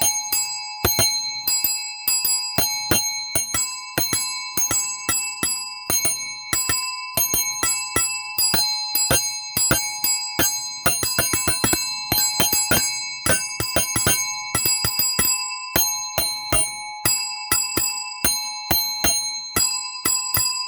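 A small metal bell struck rapidly and over and over, several strikes a second, each new strike landing on the ringing of the last so the tone never dies away.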